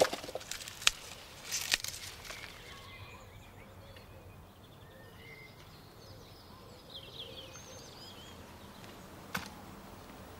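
A few sharp snaps in the first two seconds as Brussels sprouts are bent and broken off the stalk, then faint outdoor quiet with scattered short bird chirps.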